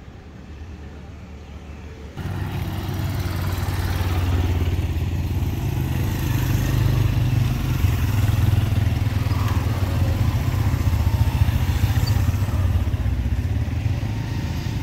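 A motorcycle engine running steadily under a rushing noise. It comes in suddenly about two seconds in, much louder than the quiet background before it.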